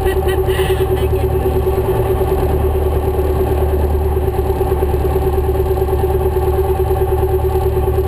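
Light aircraft's piston engine and propeller running at low taxi power, heard from inside the cockpit as a steady drone with a constant hum and a fine even pulsing.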